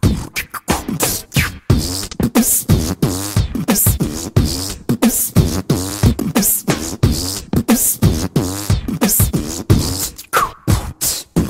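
Background music: a beatboxed vocal-percussion passage with a steady, quick rhythm.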